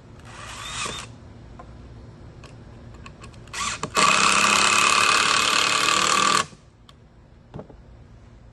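Power drill driving screws into the bench's wood: a short burst near the start, a brief blip, then a steady run of about two and a half seconds that stops abruptly.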